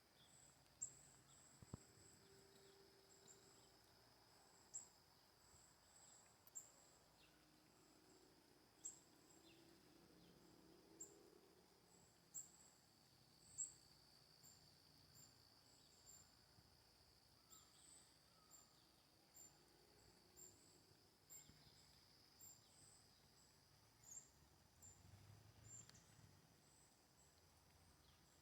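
Faint outdoor nature ambience: a steady high insect drone, with short high chirps scattered throughout.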